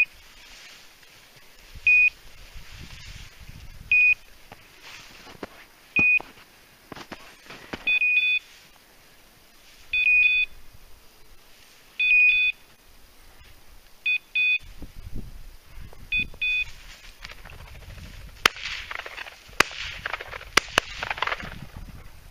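Hunting dog's beeper collar giving a short electronic beep every two seconds, changing to quicker double and two-tone beeps about eight seconds in: the collar's locator signal while the dog holds point. Near the end, footsteps rustle through dry grass and snow, with a few sharp clicks.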